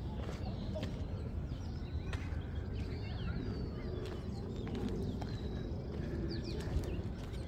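Birds chirping, with many short rising and falling calls, over a steady low rumble and a few sharp clicks.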